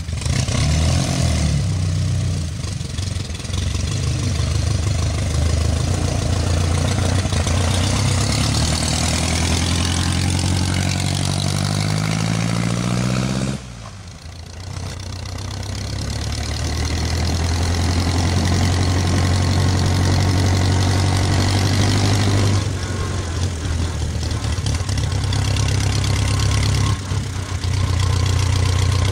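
Engine of a 1920s Henderson inline four-cylinder motorcycle running. Its pitch climbs steadily for several seconds as it revs up and then breaks off abruptly. The engine then comes back, grows louder as the machine approaches, and runs at a steady pitch.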